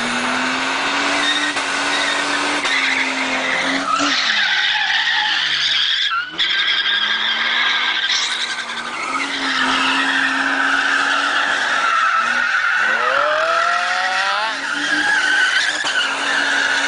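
Holden VX Commodore's 3.8-litre V6 held at high revs in a burnout, the rear tyres spinning and squealing. The revs drop sharply about four seconds in and climb back, then dip and rise again about two-thirds of the way through.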